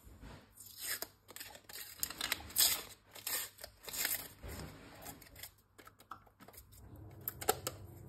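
Paper warning stickers being picked and peeled off a metal socket faceplate with the fingers: irregular short tearing and scratching sounds as the stuck-on paper comes away in bits.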